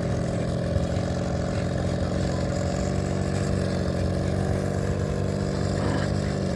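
A small boat's motor running steadily at a constant speed under way.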